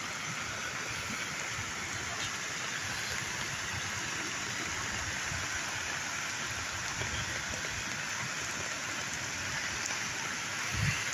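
Steady rain falling on an umbrella overhead, over the rush of floodwater running through an arroyo and spilling over a low crossing. A short low thump near the end.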